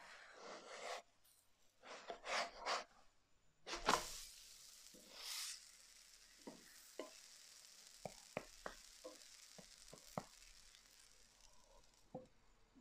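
Wooden spatula scraping under a large spring onion pancake in a nonstick frying pan, then a single loud thump about four seconds in as it is flipped over, followed by a steady sizzle of the dough frying, with scattered small ticks.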